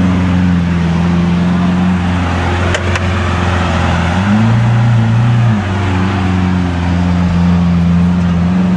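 Lamborghini Aventador V12 engine idling with a steady low tone. The revs rise briefly about halfway through, then drop back to idle.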